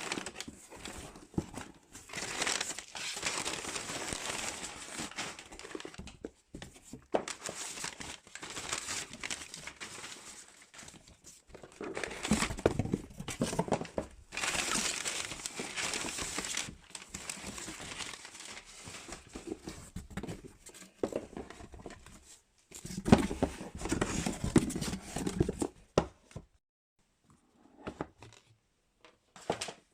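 Parcel packaging being opened by hand: wrapping crinkles and tears in bursts with short pauses, loudest about halfway through and again a little before the end, then only a few light taps.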